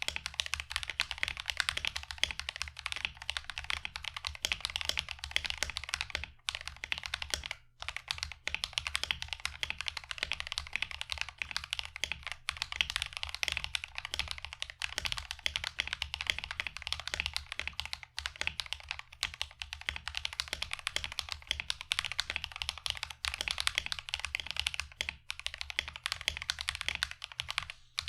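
Continuous fast typing on a mechanical keyboard fitted with stock, unlubricated Akko V3 Cream Yellow linear switches (POM stem, polycarbonate top housing, nylon bottom housing), giving a smooth, clacky sound with no spring ping. Brief pauses break the typing a few times.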